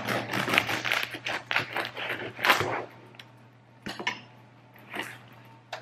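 Serrated bread knife sawing through the hard, crisp crust of a freshly baked no-knead loaf: a rapid run of crackling and crunching, with a louder crunch about two and a half seconds in, then a few scattered crackles.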